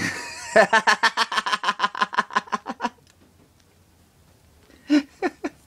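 A man laughing: a rapid run of short giggles, about ten a second, for a couple of seconds, then three short vocal sounds near the end.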